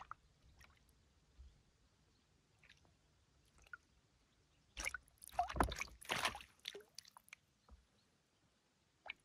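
Water sloshing and splashing close by in a burst of about two seconds, midway, with a few faint clicks before it.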